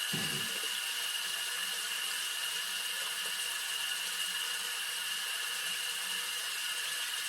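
Water running steadily from a bathroom tap into the sink.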